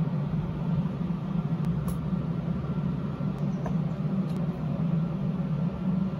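A steady low mechanical hum, with a few faint light taps as things are set down on the floor.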